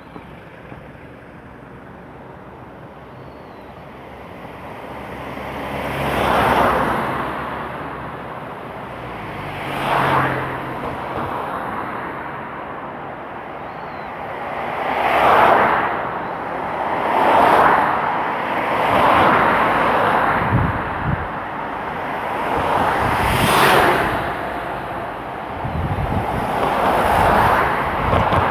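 Street traffic: after a few quieter seconds, cars pass one after another, about seven of them, each a swell of tyre and engine noise that rises and fades.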